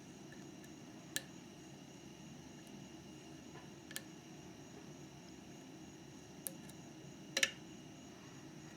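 Lock picking in a Mauer MLS euro cylinder: a few sharp isolated clicks of the pick and pins inside the lock, the loudest a short cluster near the end, over a steady low hum.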